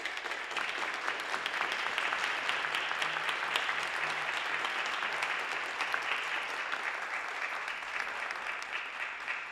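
Audience and choir applauding, many hands clapping steadily.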